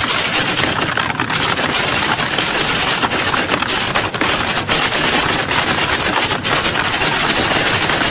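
Many computer keyboards typed on at once: a dense, unbroken clatter of key clicks.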